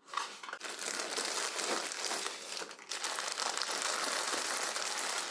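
Packaging crinkling and rustling as it is handled and unwrapped, with a brief lull about three seconds in.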